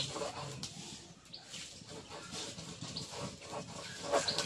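Faint steady hiss with a few short, high animal chirps, about one every second and a half.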